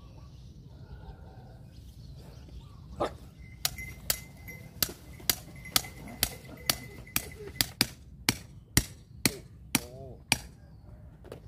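A hammer knocking a blade down through a large striped catfish on a wooden board to chop it into pieces: about sixteen sharp, clacking strikes at roughly two a second, starting about three seconds in and stopping near the end.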